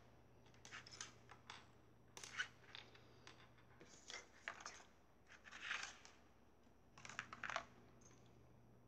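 Faint, scattered clicks and taps of small toy traffic signs, barrels and a toy car being picked up and set down on a wooden tabletop, with a few short rustles of torn paper packaging.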